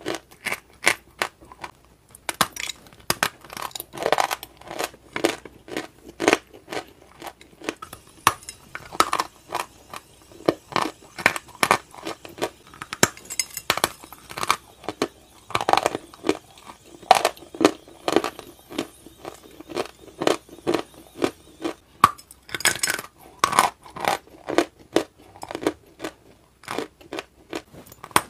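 Close-miked crunching and chewing as a person bites into crumbly white powdery blocks: a steady run of crisp crunches, about one or two a second, with clusters of louder bites now and then.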